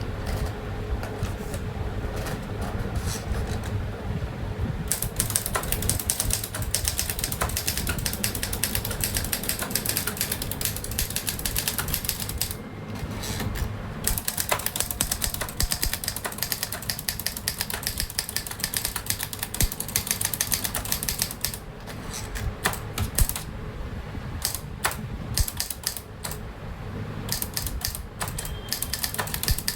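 Remington Travel-Riter portable manual typewriter with a Hindi (Devanagari) keyboard being typed on: a fast, continuous run of keystroke clacks with a few brief pauses.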